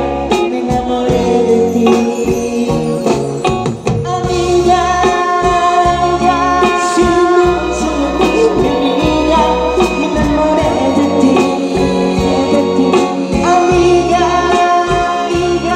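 Live band music with a male lead singer, sung notes held for several seconds over drums and band.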